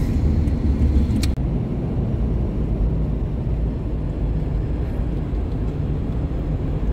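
A car driving: a steady low road and engine rumble, with a sharp click and a brief break in the sound just over a second in.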